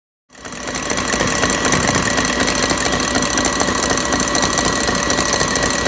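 Stand mixer running at speed, its wire whisk beating egg-white meringue toward stiff peaks in a steel bowl: a steady motor hum with a thin high whine and fast rattling. It starts abruptly just after the beginning.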